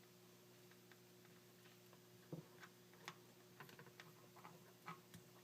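Faint, irregular small clicks and crackles of electrical tape being wound around a thin wire in a cord splice, starting about two seconds in, over a low steady hum.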